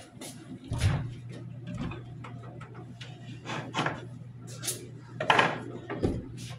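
Kitchen handling noise: scattered knocks and clicks of cupboards, drawers and objects being moved, over a low steady hum that starts about a second in and stops near the end.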